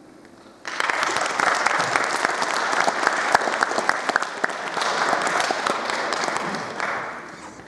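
Audience applauding. It starts abruptly about a second in and thins out near the end.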